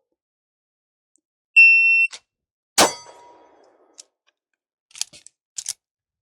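Shot timer's start beep, a steady half-second tone, then about 1.2 s later a single handgun shot drawn from the holster, followed by several lighter clicks and clacks of the reload.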